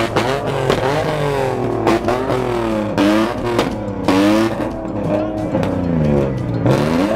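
Engine being revved hard again and again, its pitch climbing and falling back about once a second.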